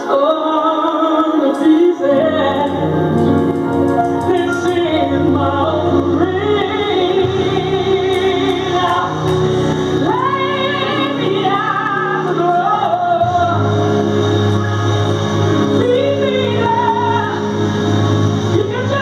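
Gospel song: a woman sings long wordless runs and held notes over sustained band accompaniment, with the bass coming in about two seconds in.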